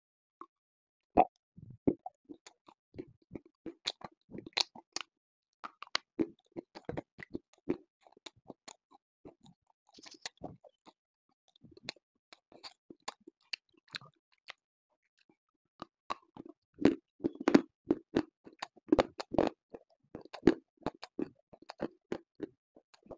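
Close-miked biting and crunching of a hard, brittle black chunk, then chewing it: a string of sharp separate crackles. After a short lull, a louder, denser run of crunches comes in the second half.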